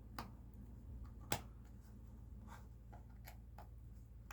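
Faint, sparse clicks and ticks of a small screwdriver and tiny screws being taken out of a MacBook's bottom case, one sharper click about a second in, over a steady low hum.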